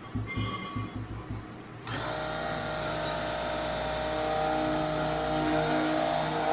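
A few knocks, then a stick (immersion) blender switches on about two seconds in and runs steadily with a whine of several held tones, blending cold-process soap batter with titanium dioxide.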